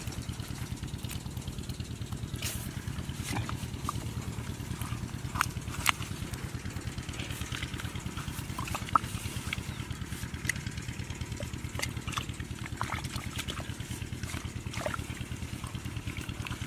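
A small engine running steadily at an even idle, with a fast, unbroken pulse. Scattered sharp clicks and small wet squelches come over it as a hand digs through mud and fish.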